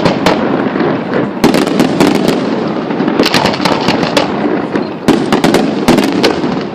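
Fireworks going off in rapid clusters of sharp bangs and crackles, over a continuous noisy background.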